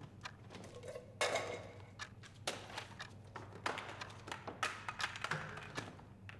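Scattered taps, knocks and clinks of things being handled at a shoe-repair workbench, with a short rustling scrape about a second in and a few more later, over a low steady hum.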